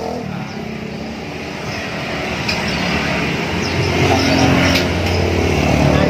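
A motor vehicle's engine running close by, growing louder over the last two or three seconds with a slight rise in pitch, as in passing traffic.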